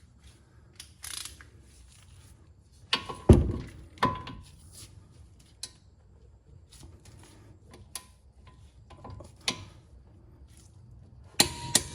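Metal tools clanking and tapping as a socket and torque wrench are worked onto a brake caliper bracket bolt in a tight space. There are two sharp, ringing metal clanks about three and four seconds in, and another pair near the end.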